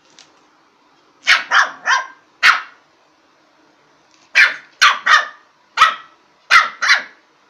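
Lhasa apso puppy barking in play: short, sharp barks in two bursts, four in quick succession, a pause of about two seconds, then six more.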